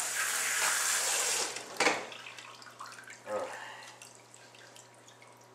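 Water from a kitchen sink's pull-out sprayer rinsing a dog's coat, a steady spray that stops about one and a half seconds in. A single sharp knock follows, then only faint small sounds.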